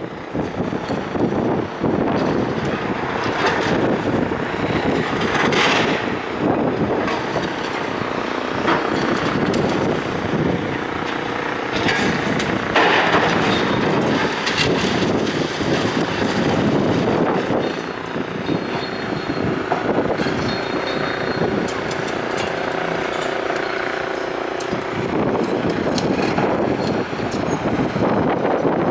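Strong wind buffeting the microphone, with a vehicle engine running steadily underneath.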